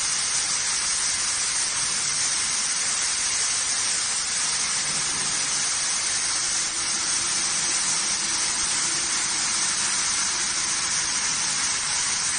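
A 4 kW fiber laser cutting through 12 mm stainless steel plate, its assist-gas jet making a steady hiss as it blows the molten metal out of the cut, with a faint low machine hum underneath.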